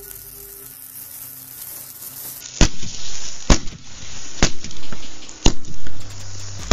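Firecrackers going off in a matchbox model: a steady hiss of spraying sparks for about two and a half seconds, then four sharp bangs about a second apart, with crackling in between.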